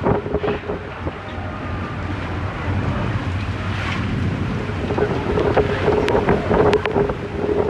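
Star Ferry under way in a rainstorm: wind buffets the microphone over a steady hum from the ferry, with rain and water noise and scattered sharp ticks. The hum fades in the middle and returns about five seconds in.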